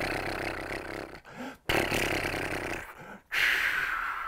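A man imitating an old aeroplane with his mouth: three breathy whooshes with a low rumble, each starting suddenly and fading; the last one falls in pitch.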